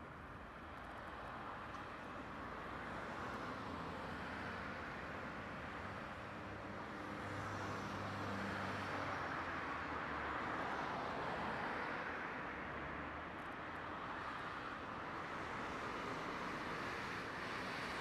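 Steady rumble of distant vehicles, growing louder about halfway through and easing off again.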